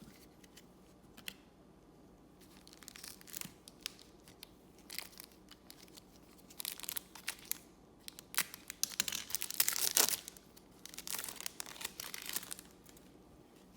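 Trading-card pack wrapper tearing and crinkling in irregular bursts of crackle, loudest about nine to ten seconds in, as a pack is opened by hand.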